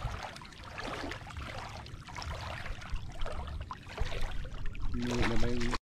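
Shallow seawater sloshing and trickling with small splashes and crackles as someone wades through it. A brief voice sounds near the end.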